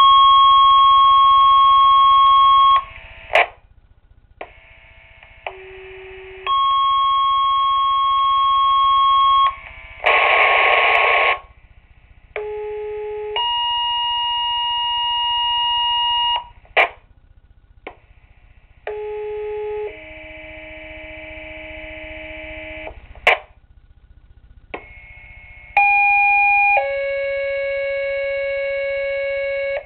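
Two-tone sequential fire paging tones over a Minitor II pager's speaker: about five pages in a row. Each page is a short steady tone of about a second, followed by a longer steady tone of about three seconds at a different pitch, with a short crackle after each. These are the activation tones that set off individual fire companies' pagers during a pager test.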